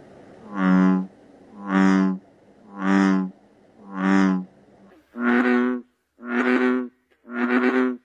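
Frogs croaking. First come four deep, droning calls about a second apart. After a cut, an American bullfrog gives a slightly higher series of deep croaks, each about half a second long and about one a second.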